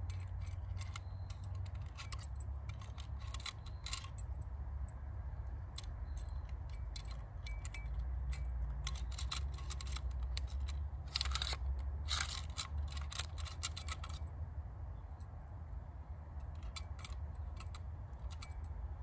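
Small metal clicks and rattles of a manual staple gun being loaded: a strip of staples worked into its open magazine, with a denser run of clicks a little past halfway.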